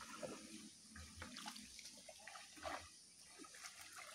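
Faint, intermittent sloshing and small splashes of feet wading through shallow muddy water.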